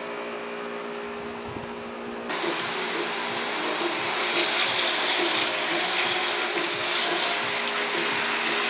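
Water spraying from a hose onto a car's painted body: a steady hiss of spray that starts abruptly about two seconds in. A steady low hum runs underneath.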